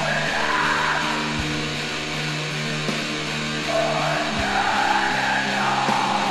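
Slow metal music: sustained distorted guitar chords with a wavering higher line above them, and a deep drum hit twice, about three seconds apart.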